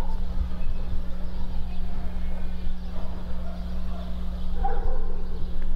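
Outdoor ambience dominated by a steady low rumble, with faint distant sounds, perhaps voices, around the middle.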